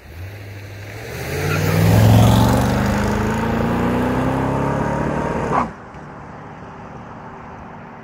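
C3 Corvette V8 accelerating hard as it drives past and away, its engine note climbing in pitch and loudest about two seconds in. About five and a half seconds in the sound drops suddenly to a much fainter, steady engine note as the car pulls into the distance.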